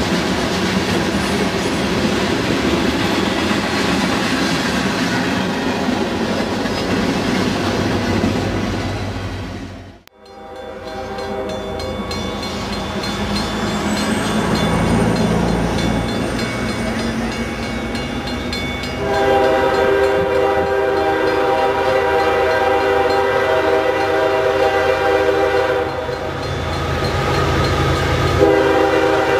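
Freight train rolling past, covered hopper cars rumbling and clicking over the rail joints. After a sudden cut, a Union Pacific diesel locomotive approaches and sounds its air horn in one long chord, then starts another blast near the end.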